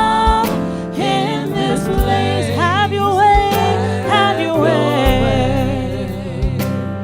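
Gospel worship song: singers with band accompaniment, sustained chords, bass and regular drum beats, the voices gliding between notes.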